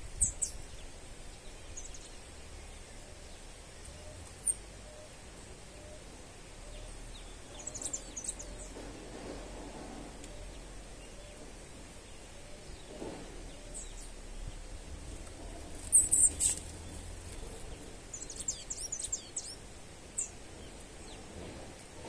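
Small songbirds giving short, high, thin chirps, scattered singly and in little clusters, the loudest pair about two-thirds of the way through, over faint steady outdoor background noise.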